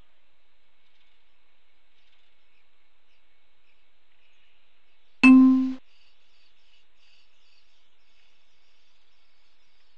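A single loud ringing clang about five seconds in, strongly pitched with many overtones and dying away within half a second, over faint, continuous high bird chirping.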